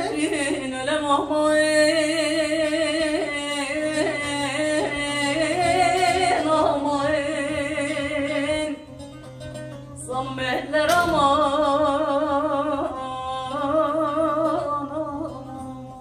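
A woman sings a Turkish uzun hava, a slow, free-rhythm folk lament, in a wavering, heavily ornamented voice, accompanied by a plucked bağlama. Her voice drops away about nine seconds in, comes back a second or so later, and fades near the end, leaving the bağlama.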